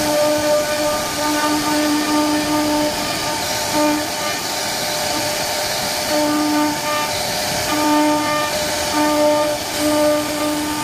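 CNC wood-carving machine running: a steady cutting noise with a fixed-pitch hum that cuts in and out every second or so as the machine moves.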